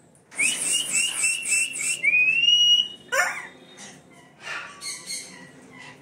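A parrot whistling. It gives a quick run of short whistled notes, then one longer rising whistle, then a sharp falling call about three seconds in, with fainter calls after.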